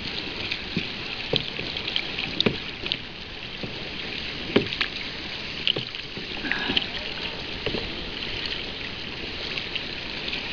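Sea water lapping and splashing around a kayak hull, with irregular small slaps and drips from paddle strokes; the sharpest slaps come about two and a half and four and a half seconds in.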